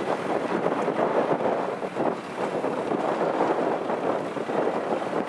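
Kubota DC-70 combine harvester running steadily as it works the rice, a rough mechanical noise with wind buffeting the microphone.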